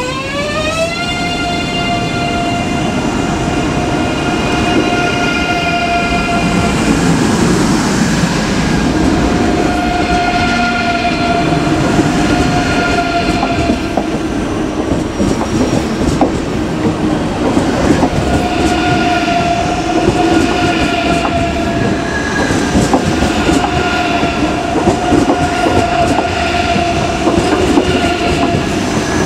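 ICE 3 high-speed electric train pulling out. Its traction equipment gives a whine of several tones that rises in pitch over the first second, then holds at a steady pitch, fading and returning as the cars pass. Steady wheel-on-rail noise runs under it.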